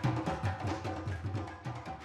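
Hand drums, djembe-style, playing a fast dance rhythm, with deep strokes coming several times a second; the drumming thins out near the end.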